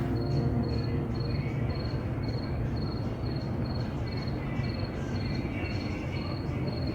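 A cricket chirping steadily, short high trilled chirps about twice a second, over a low steady background hum.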